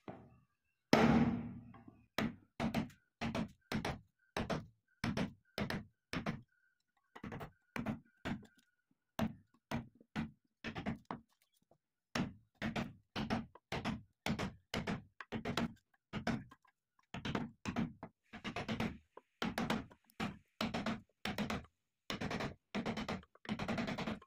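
1.5-inch carpenter's chisel driven with steady blows, about two a second, chopping out the blade cavity in a babool-wood plane body. The first blow is the loudest, and the blows pause briefly about halfway through.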